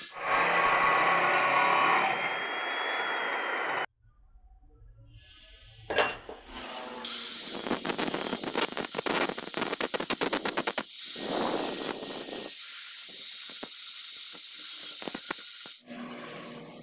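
Handheld angle grinder with a thin abrasive cut-off disc grinding through steel clamped in a vise, a loud, steady, noisy grind. It stops about four seconds in, leaving a quieter stretch with a single sharp knock, then cuts again for about nine seconds before stopping near the end.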